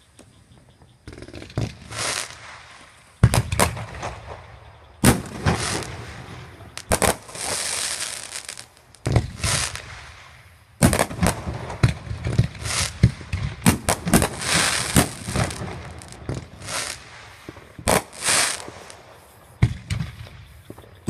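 Fireworks going off: a fast run of sharp bangs and crackling bursts, starting about a second in.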